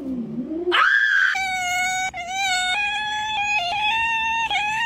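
A cat's low, falling meow ends, and a black cat takes over with a loud, high-pitched yowl. The yowl rises at first, then runs as a string of long, steady, drawn-out cries with brief breaks between them.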